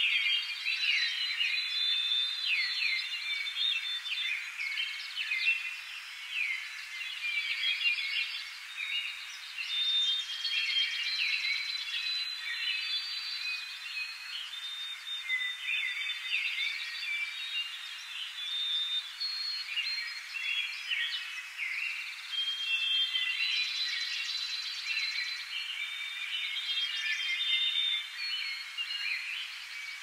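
Dawn chorus of many small birds singing at once: a dense, continuous tangle of short high chirps, trills and quick whistled glides over a faint even hiss.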